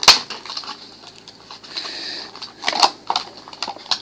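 Stiff clear plastic blister packaging being handled: a sharp click at the start, then scattered clicks and crinkles a little before the end.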